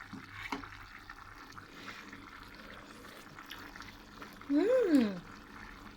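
A person's wordless voice sound, a drawn-out hum or exclamation that rises and then falls in pitch, about four and a half seconds in, over faint kitchen background noise.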